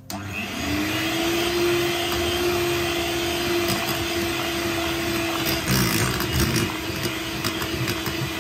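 Electric hand mixer running, its beaters whisking flour into chocolate cake batter in a glass bowl. The motor spins up to a steady hum within the first second, with a rougher, louder patch about six seconds in.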